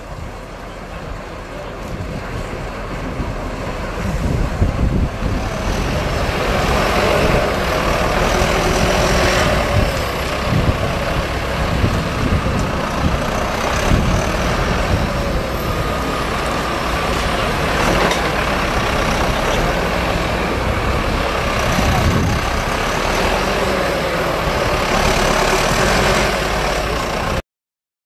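Diesel farm tractors working hard under load, their engines running steadily; the sound cuts off abruptly near the end.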